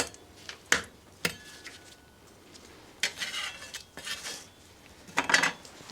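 Dishware being handled: a few sharp knocks and clinks in the first second or so, then short scraping sounds about three, four and five seconds in.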